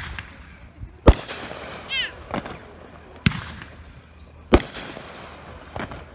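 A 200-gram consumer firework cake firing single shots: about five sharp bangs, roughly a second apart. A brief falling whistle comes about two seconds in.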